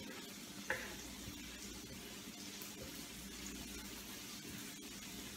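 Onions frying in hot oil in a pan: a steady, quiet sizzle, with one brief tap about a second in.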